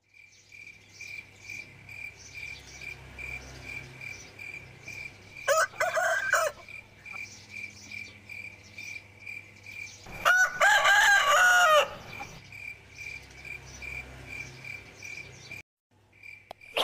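A rooster crowing twice, a short call and then a longer cock-a-doodle-doo, over the steady chirping of crickets at about three chirps a second.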